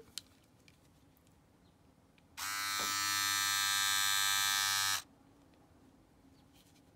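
VOYOR ES400 cordless electric shaver with its foil shaver head switched on and running with a steady buzz for about two and a half seconds, starting about two seconds in and cut off abruptly. A few faint handling ticks come before it.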